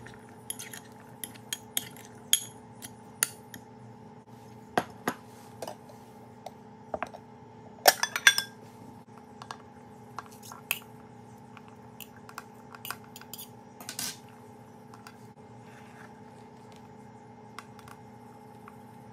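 Scattered clinks and taps of a metal spoon and dishes against glass bowls, with the loudest clatter about eight seconds in, over a faint steady hum.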